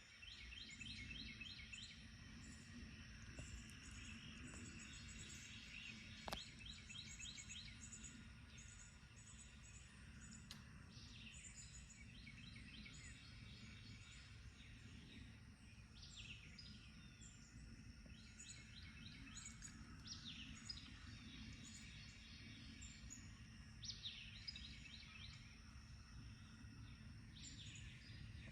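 Several songbirds singing faintly in an early-morning chorus: repeated trilled phrases and falling whistles, with high chips, over a steady low background rumble.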